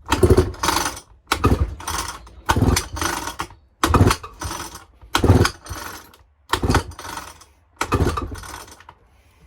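Old Husqvarna chainsaw's recoil starter pulled seven times in quick succession, each pull cranking the two-stroke engine over briefly. The engine turns over without firing because a compression gauge is screwed into the plug hole for a compression test.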